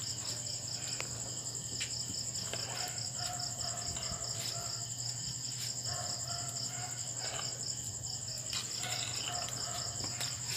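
Crickets chirping in a steady, fast-pulsing trill, with scattered light clicks of a metal ladle stirring sticky rice in a pot.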